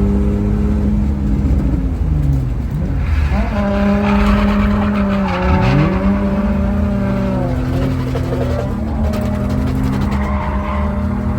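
Drift car engines running at high revs, the pitch holding, dipping and climbing again as the throttle changes, while tyres screech in a slide for a few seconds in the middle.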